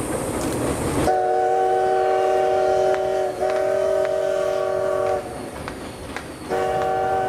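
Train whistle sounding a steady chord of several notes: one long blast of about four seconds that dips briefly partway through, a pause, then a second blast starting near the end. A rushing noise fills the first second before the whistle.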